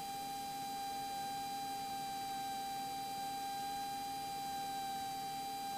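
A steady electronic tone a little below 1 kHz, with fainter higher overtones, holding level throughout. It is heard in the cockpit's headset audio feed rather than as engine noise, and is typical of electrical whine or interference on the intercom line.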